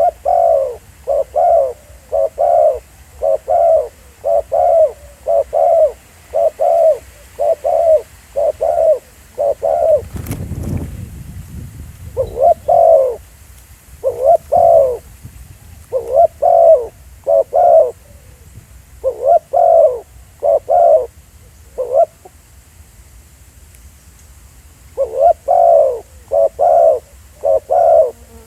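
Spotted dove cooing: a long run of short, low coo notes at about two a second, in bouts broken by pauses of a couple of seconds. About ten seconds in there is a single thump with a brief low rumble.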